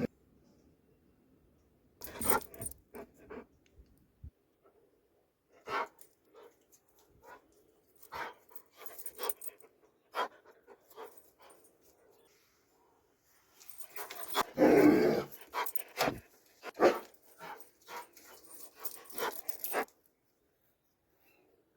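Doberman pinscher making short, scattered sounds with silences between them, such as huffs and brief barks. A louder, longer vocal sound comes about two-thirds of the way through.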